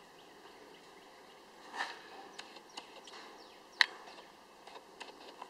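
Quiet background with a few faint, scattered taps, the sharpest about four seconds in.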